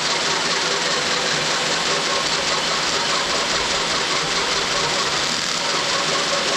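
Cordless drill running steadily, turning a valve-style fly cutter that cuts valve reliefs into the pistons of a Ford 302 small-block, over the steady rush of a vacuum cleaner drawing the chips out through the exhaust port.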